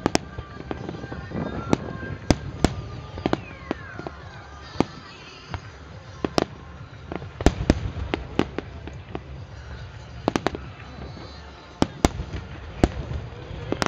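Fireworks starmine barrage: a rapid, irregular string of sharp bangs from aerial shells bursting, some close together in clusters, over a continuous low rumble. A falling whistle sounds a few seconds in.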